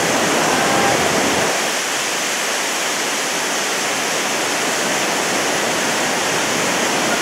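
Steady, loud rush of a tall mountain waterfall and the white water tumbling over the rocks below it. The deepest rumble thins out a little about a second and a half in.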